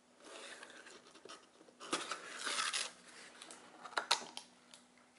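Cardboard mailer box being opened by hand: the cardboard scrapes and rustles, loudest about two seconds in, with a couple of sharp clicks near four seconds.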